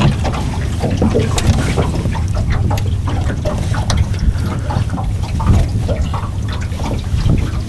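Water lapping and splashing against the hull of a boat riding at anchor in a river current, over a steady low rumble.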